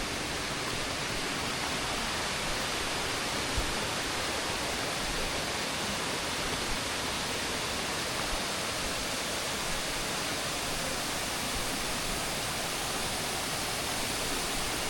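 Steady rush of falling water from San Ramón Waterfall, an even, unbroken hiss.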